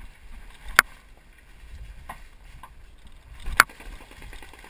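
Two sharp, loud cracks close by, nearly three seconds apart, over faint rustling.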